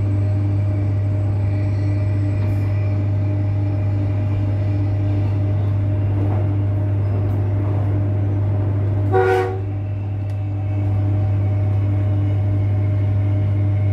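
EMU electric train running, heard from inside the carriage: a steady low hum with constant tones above it. About nine seconds in comes a short train horn blast.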